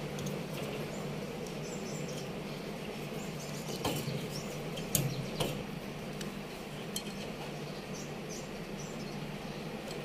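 A few light metallic clinks and taps as copper refrigerant tubing and hand tools are handled, clustered around the middle, over a steady low hum.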